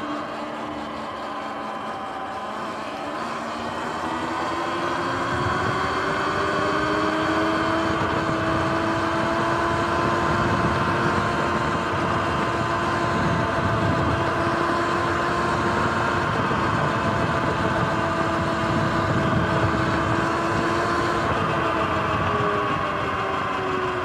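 Sur-Ron X electric dirt bike under way on pavement: its drivetrain whine rises as it speeds up over the first few seconds, holds steady, then falls near the end as the bike slows. Under it is a steady rush of wind and tyre noise.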